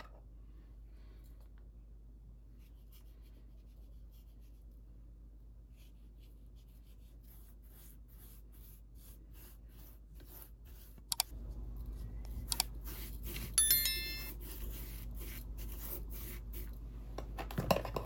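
Faint scratchy rustling and light ticks of hands sprinkling and rubbing salt and ground black pepper onto raw steaks on a stainless steel plate, over a low steady hum. A few sharper clicks and a brief high ringing tone come in the second half.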